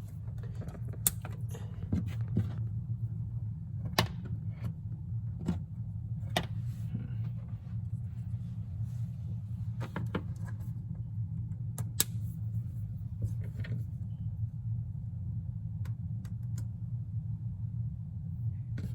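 Small plastic plug connectors and thin wires of LED puck lights being handled and pushed together, giving scattered sharp clicks and light rattles at irregular intervals over a steady low hum.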